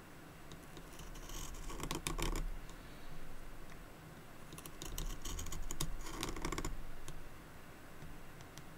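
A knife blade shaving the wood of a pencil by hand: a scraping cut full of small clicks, in two longer strokes about a second in and again around five seconds, with lighter scrapes between.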